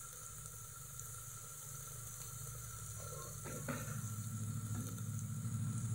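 Onion, garlic-ginger paste and spice masala frying gently in mustard oil in an aluminium pressure cooker, a soft steady sizzle. A couple of faint knocks come about three and a half seconds in, and a low hum grows louder toward the end.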